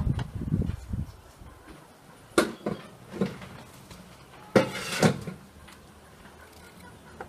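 Green tomatoes being cut by hand with a small knife over a metal bowl: about five short knocks and clinks in the middle of the stretch, after a low rumble in the first second.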